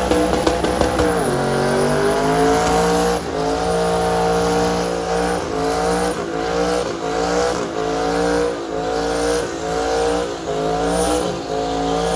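Twin-turbo LS V8 of a Silverado pickup revving hard through a burnout with the rear tires spinning. Its pitch drops about a second in, then climbs and falls back again and again, roughly once a second.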